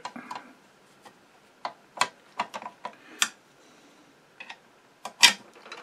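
Irregular light metallic clicks and taps, about ten, the loudest near the end, from a screwdriver and steel parts as the lifter shaft is fitted into a Singer 15-91 sewing machine's bed.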